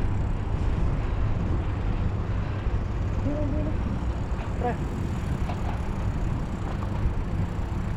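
Steady low rumble of road traffic, with a few faint brief voice-like sounds in the middle.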